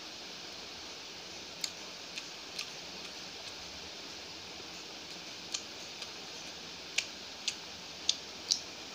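Close-up eating sounds of a chicken curry leg piece: short wet mouth clicks and lip smacks while chewing, scattered and coming more often near the end, over a steady hiss.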